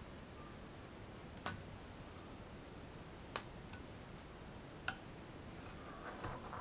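Sparse sharp crackles and ticks, about five in six seconds, as an LED strip heats on the sole of a hot clothes iron and its SMD LEDs are scraped off with a metal tool.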